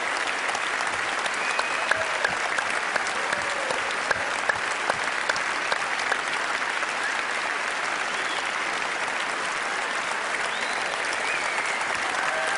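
Large audience applauding steadily, a dense patter of many hands clapping, with a few cheering voices mixed in.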